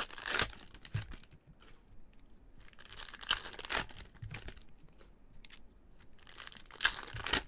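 Foil wrappers of Topps Chrome trading card packs crinkling and tearing as the packs are ripped open, in three bursts a few seconds apart.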